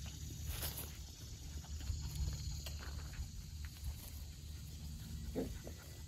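Welsh Terrier puppies grunting and snuffling as they chew and mouth bare toes, with one short, higher-pitched puppy sound a little after five seconds in, over a steady low rumble.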